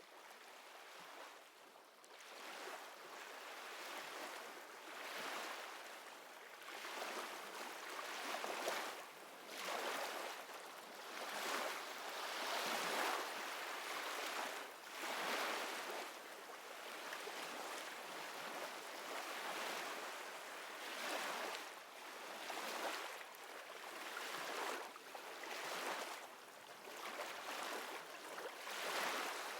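Ocean waves washing ashore, a hiss that swells and falls back every couple of seconds, fading in from faint over the first few seconds.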